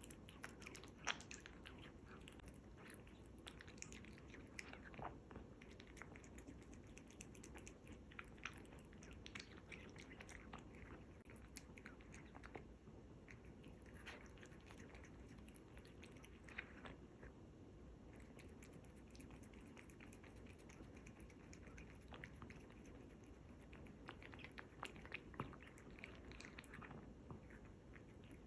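A cat chewing and biting raw lamb kidney: quiet, irregular wet clicks and smacks of its jaws, busier near the start and again near the end.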